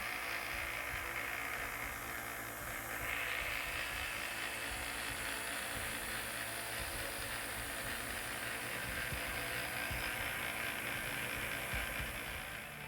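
Harbor Freight 1x30 belt grinder running in its knife-sharpening rig, a steady whirring hiss from the moving belt.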